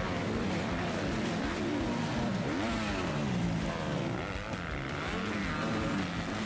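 Motocross dirt bike engines revving, their pitch climbing and dropping several times as the throttle is opened and shut.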